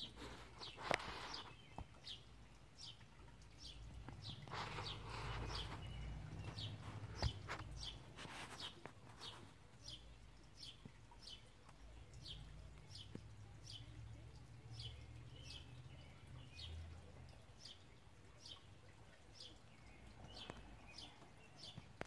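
A bird repeating one short, high, falling chirp over and over, nearly two a second, faint. A low rumble swells and fades twice underneath, and there are a couple of sharp clicks near the start and about seven seconds in.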